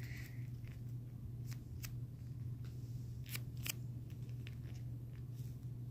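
Handling noise from a soft foam squishy being squeezed and fingered close to the microphone: a few light, scattered clicks and rustles, over a steady low hum.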